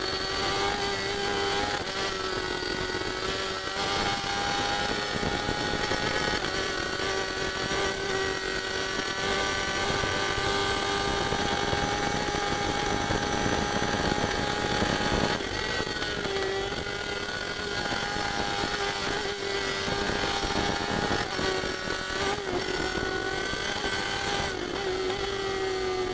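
Racing superbike engine heard from an onboard camera at full speed, its pitch staying nearly level at high revs over the rush of wind. The engine note dips briefly about 15 seconds in and again near 24 seconds.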